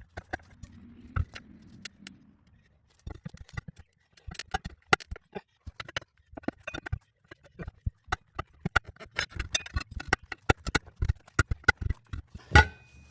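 Metal tire-changing tools clicking, knocking and scraping against a tractor's steel wheel rim while the tire is worked off, in quick irregular clinks, with one louder ringing clang near the end.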